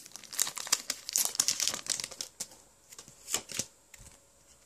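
Foil Pokémon booster pack wrapper crinkling in the hands in a run of quick rustles, falling quiet near the end.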